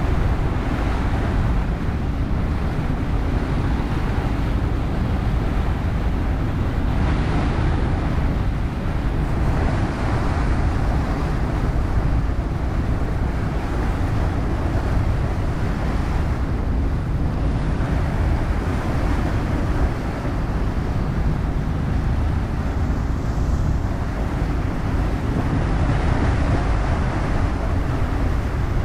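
Motorboat under way: a steady engine drone with a heavy low rumble, under the rush of water and wind buffeting the microphone. The rushing swells now and then.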